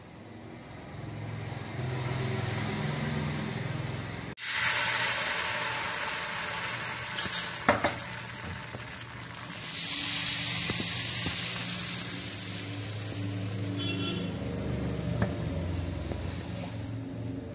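Palappam batter sizzling in a hot appam pan, the hiss starting abruptly about four seconds in after a quieter stretch, with a few light clicks around the middle.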